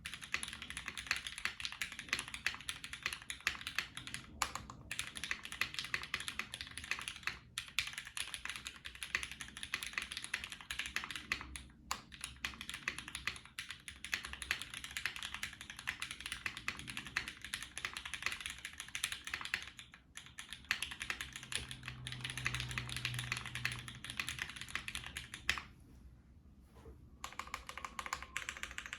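Typing on a Velvet Pro prototype mechanical keyboard, built with lubed Cherry MX Black Ultraglide linear switches on an aluminium plate in a double O-ring mount, with GMK keycaps. A steady, fast stream of keystrokes, with a brief pause near the end.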